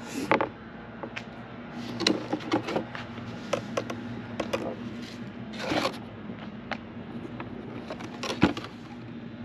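Cardboard product box being handled and turned over: scattered light taps and clicks, with a few louder scraping rustles, over a steady low hum.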